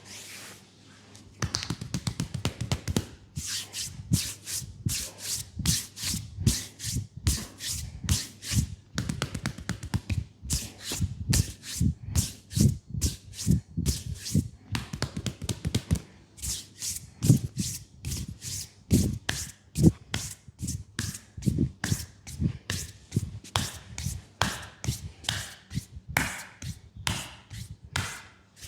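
Hands slapping and tapping in quick rhythmic strokes of a percussion massage on the legs, several strikes a second in runs with short pauses, starting about a second and a half in.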